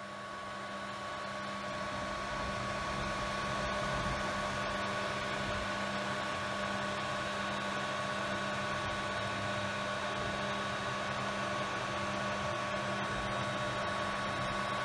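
Creality Ender 3 V2 3D printer running a print in PLA Plus: a steady whir of its fans with a constant hum and whine over it as the print head moves.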